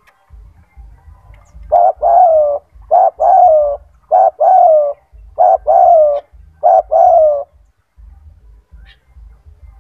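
Spotted dove (tekukur) cooing loudly: five quick two-part coos about a second apart, each a short note followed by a longer, slightly falling one.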